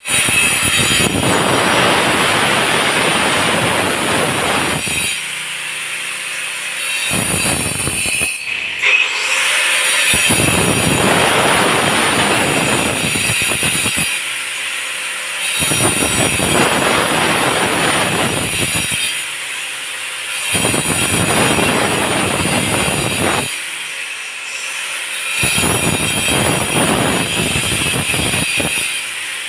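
Hand-held angle grinder cutting into a concrete pillar: the disc bites in for cuts of a few seconds, six times, the motor running on with a high whine in the lighter gaps between.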